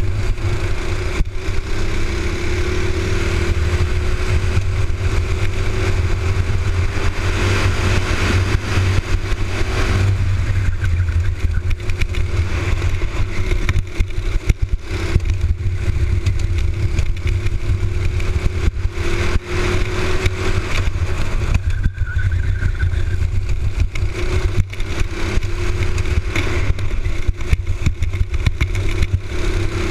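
Honda four-stroke engine of a box-stock racing kart running hard from an onboard camera, its pitch climbing for several seconds and dropping back several times, with a heavy low rumble underneath.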